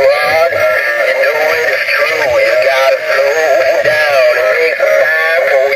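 Animatronic singing toy turtle playing its song through its built-in speaker: a recorded voice singing over backing music, thin and with little bass.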